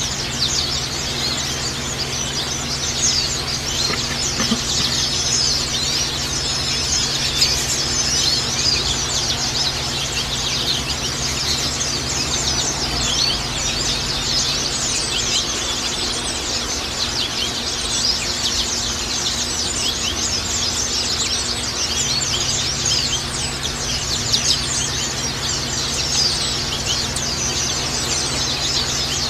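A group of white-eyes (pleci) chattering and twittering continuously in rapid, high, overlapping chirps, with a few short steady whistled notes. A steady low hum runs underneath.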